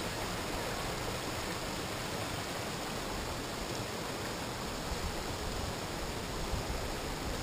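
Creek water rushing steadily over rock shoals.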